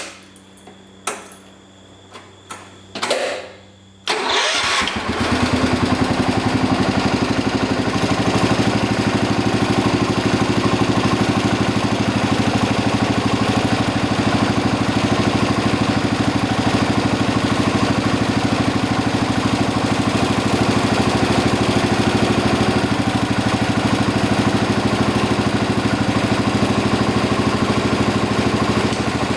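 A few clicks and knocks, then about four seconds in the Kohler engine of a Cub Cadet 1450 garden tractor cranks, catches and settles into a steady run, freshly filled with new oil.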